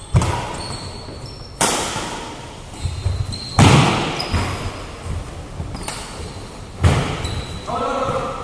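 Badminton racquets striking a shuttlecock in a doubles rally: about half a dozen sharp hits one to three seconds apart, each ringing on in the echo of a large metal-walled hall.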